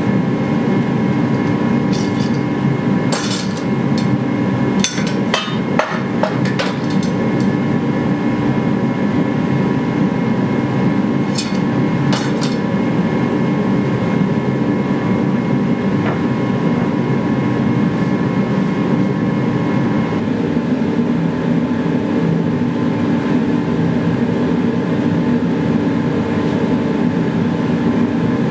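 Gas forge running with a steady, loud noise, with a faint whine in it. Sharp metallic clicks and knocks come several times in the first few seconds and again around twelve seconds in, as steel clamps are set along a sword blade.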